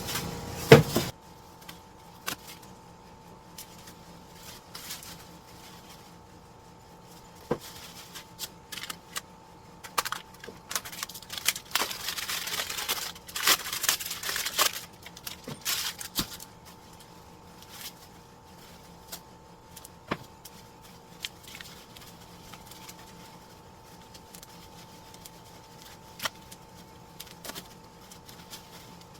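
Chair parts and packaging being handled during unboxing: scattered clicks and knocks, with a stretch of rustling plastic and cardboard about ten to fifteen seconds in, over a steady faint hum.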